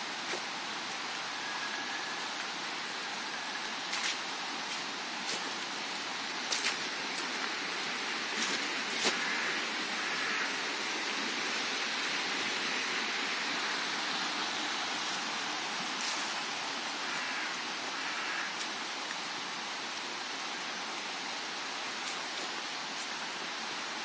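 Steady rushing of a stream, with a few scattered clicks.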